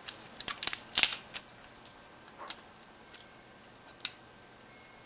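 Sharp clicks and taps from a laptop LCD panel being handled: a quick run of clicks in the first second and a half, the loudest about a second in, then a few single clicks, as the panel is flipped over and its display cable connector is worked loose.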